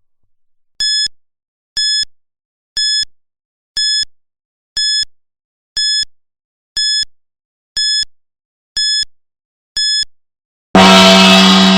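Countdown timer's electronic beeps, ten short identical beeps once a second marking the last ten seconds, then a loud gong struck about a second before the end and ringing on as the time runs out.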